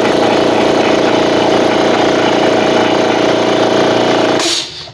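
PowerStar PS-47L 2 HP direct-coupled piston air compressor running, its motor and pump making a loud, steady whine with a rattle and hiss. About four seconds in it is switched off and stops with a brief hiss of air.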